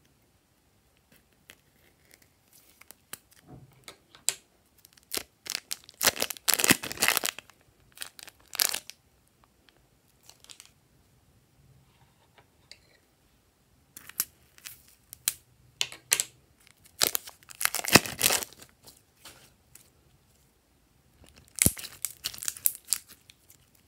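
Soft plastic piping bags crinkling and crackling as they are squeezed to pipe slime out, in two bursts of a few seconds each. Near the end comes a shorter burst of crackling as a hand works the glossy slime.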